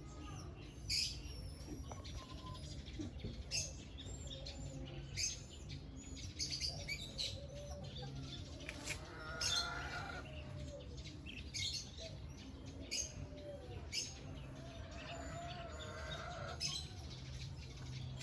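Small birds chirping repeatedly, with short high calls scattered throughout, over a steady low hum.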